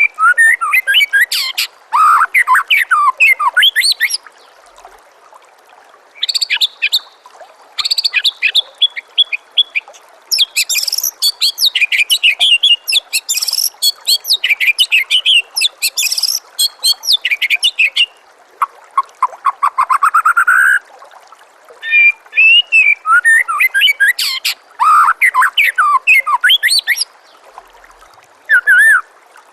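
White-rumped shama (murai batu) singing loud, varied phrases of fast whistled and gliding notes with short pauses between them, over a steady trickle of running water. Just before the middle, one phrase is a quick run of notes climbing in pitch.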